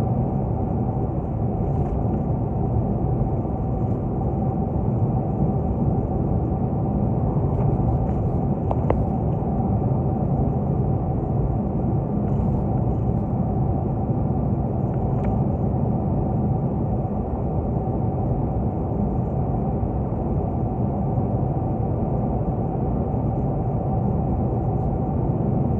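Steady tyre and road noise with engine hum inside a car's cabin as it cruises along a sealed highway, with a few faint clicks in the middle.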